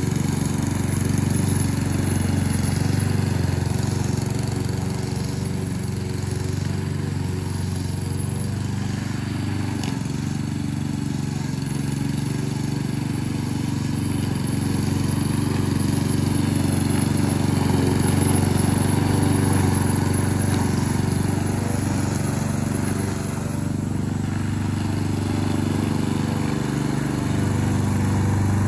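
Gasoline lawn mower engine running steadily under mowing load, rising and falling a little in loudness as it moves.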